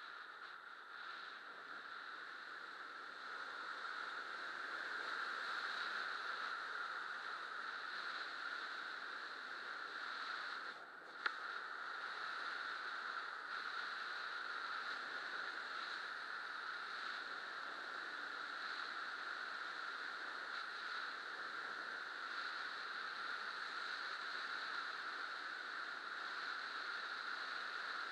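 Airflow rushing over a helmet-mounted camera during a fast speedflying descent: a steady rush of wind that builds a little over the first few seconds. About eleven seconds in, it briefly drops away and a single sharp click is heard.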